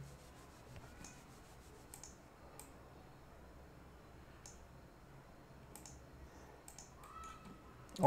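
Several faint, irregularly spaced clicks from a computer mouse and keyboard in use, over near-silent room tone.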